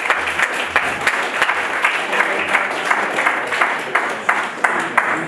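An audience applauding: many hands clapping densely and steadily, with a few sharper single claps standing out near the end.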